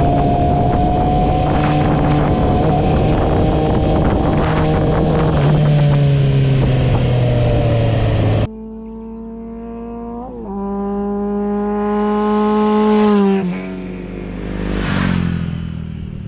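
Motorcycle engine running steadily at road speed with wind rush, heard from on the bike. About halfway through it cuts suddenly to a quieter take of the engine pulling up through the gears, its pitch climbing and then dropping at a gear change.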